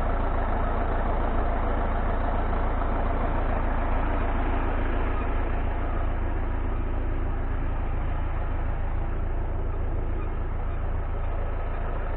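Drill rig's engine running steadily at an even speed.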